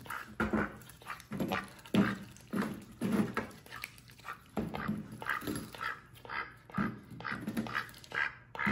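Pet duck giving short quacks, about two a second, while feeding.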